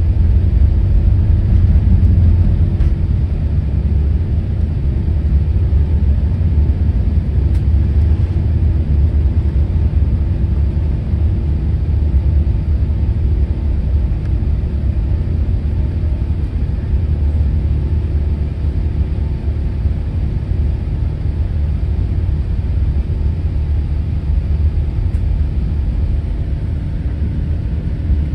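Airbus A380 cabin noise during takeoff and initial climb: a loud, steady low rumble of the engines at high thrust, with faint steady engine tones over it, easing slightly after the first few seconds.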